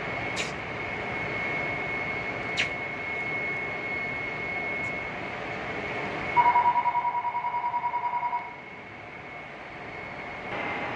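Oxy-acetylene brazing torch flame hissing steadily on a copper pipe joint, with sharp clicks about half a second and two and a half seconds in. About six seconds in, a loud high beep pulses rapidly for about two seconds. The hiss then drops for about two seconds before it returns.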